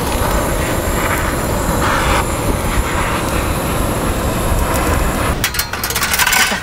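Long gas torch lighter's jet hissing steadily as it is held to charcoal briquettes, with wind rumbling on the microphone. Near the end, a quick run of metallic clicks and rattles as the wire grill grate is set on the grill.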